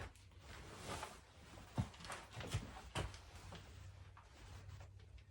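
Light knocks, clicks and rustling from handling a bicycle during assembly, with one sharper knock a little under two seconds in.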